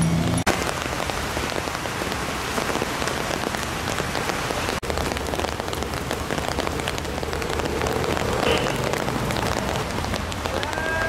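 Steady rain falling on the wet pavement and surfaces close by: an even hiss dotted with the ticks of single drops, with a faint low rumble underneath.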